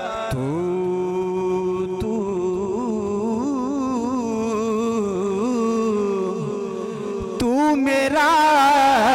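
A man singing a Punjabi Sufi kalam, drawing out one long wavering, ornamented note over a steady drone; the singing grows louder about three-quarters of the way through.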